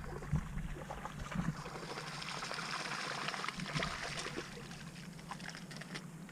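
Water splashing and trickling with many small crackles, strongest around the middle.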